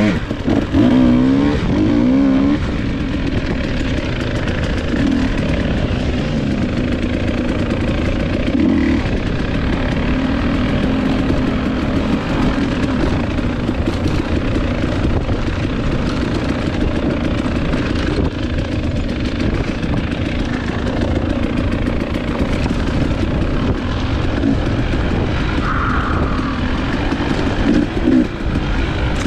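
Dirt bike engine running under load while being ridden, revving up and down over the first couple of seconds, then pulling more steadily.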